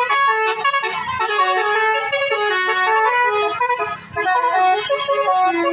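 Bus basuri telolet horn playing a tune: a run of loud multi-note horn blasts stepping up and down in pitch, with a short break about four seconds in.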